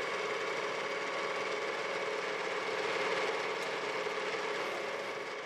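CNC lathe running, spinning an African blackwood blank for a bagpipe stock between centres: a steady machine hum with a few fixed tones over a hiss, swelling slightly about halfway through.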